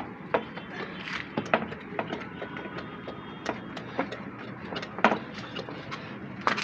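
Irregular light knocks and clicks, about ten of them, the loudest about five seconds in, over a steady low hum.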